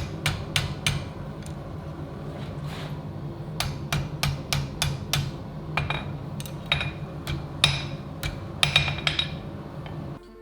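Hammer blows on steel, irregular and fairly quick, some of them ringing, over a steady low hum. The hum and blows stop just before the end.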